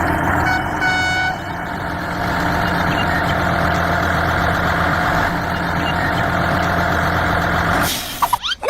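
Tractor engine running steadily, with a short horn toot about a second in; the engine sound cuts off suddenly near the end.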